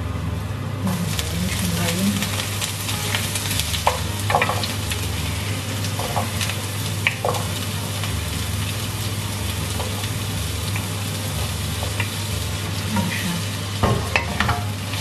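Vegetables sizzling in hot oil in a frying pan, the sizzle rising about a second in as they go in, with the scattered clicks and knocks of a wooden spatula pushing them off a plate and stirring them in the pan.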